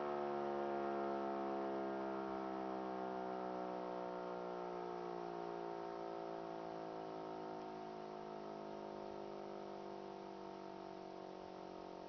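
E57 electric motor siren winding down after its tone is switched off, its rotor coasting so that the howl slowly falls in pitch and fades.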